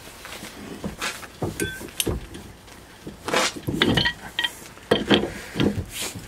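A pipe wrench clanks on a hitch ball's steel nut as it is lifted off and re-seated for another turn, while an adjustable wrench holds the shank from below. The sound is a string of metal clicks and knocks, a few ringing briefly, with a short scrape about three seconds in.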